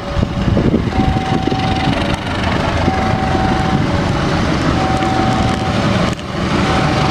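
Diesel locomotive approaching slowly, its engine running with a deep rumble, while a railway level-crossing alarm sounds a repeating two-tone signal, a lower and a higher note alternating about once a second.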